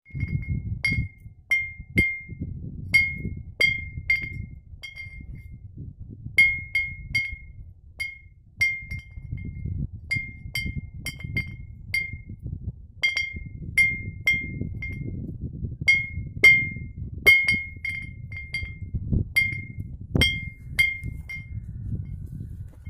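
A glass bottle hung from a tree as a wind-driven scarer against nilgai, clinking again and again at irregular intervals as the wind knocks it. Each clink rings briefly at one clear high pitch, with wind rumbling underneath.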